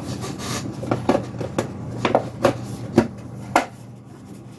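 Hands handling a small aluminium SSD enclosure and its metal release pin: a run of light, sharp clicks and knocks, about seven in three seconds, then quieter near the end.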